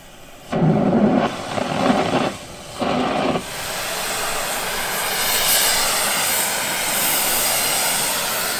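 Loud rushing hiss from thermite rail welding: two short rumbling bursts in the first few seconds, then a steady, sharp hiss.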